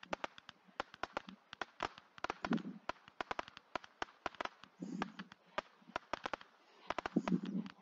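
Rapid-fire Roman candles shooting: an irregular run of sharp pops, several a second, as stars are fired, with a deeper thud every two to three seconds.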